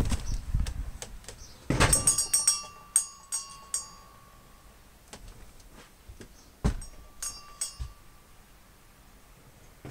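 A door opening with a thump, then rattling, clinking knocks with a faint metallic ring, in a burst about two seconds in and a shorter one about seven seconds in.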